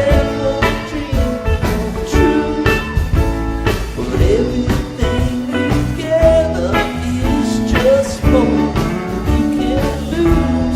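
Live rock band playing: a bending melodic lead line over sustained bass and regular drum hits.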